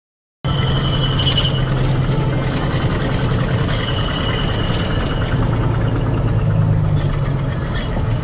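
Truck's diesel engine running steadily, heard from inside the cab as it drives along, with a low steady drone. The sound cuts in abruptly about half a second in, and two short high squeals and a few light clicks come over it.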